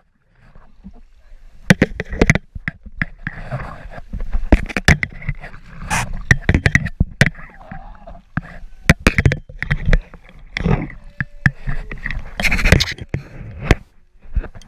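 River water splashing and sloshing, with irregular knocks and scrapes, as a kayak is brought in close and a bamboo fish trap is hauled up out of the water.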